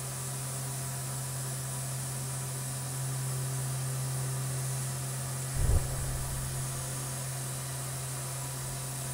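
Tormach CNC mill's spindle running at 8,000 RPM through a light finishing pass with a 1/2-inch bull-nose end mill: a steady hum under a constant hiss of coolant spray. A brief low thump about five and a half seconds in.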